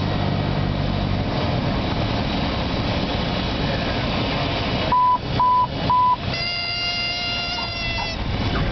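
Cessna 172 cockpit in the landing: the engine note drops away about a second in as the throttle comes back to idle, leaving a steady rush of wind and propeller. About halfway through come three short beeps, then a steady buzzing horn tone with many overtones for about two seconds, the stall warning horn sounding as the plane is flared for touchdown.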